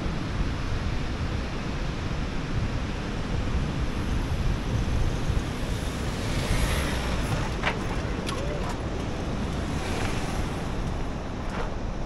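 Wind buffeting the microphone over the steady wash of surf, with a GWM Cannon ute driving past on the sand about six to seven seconds in.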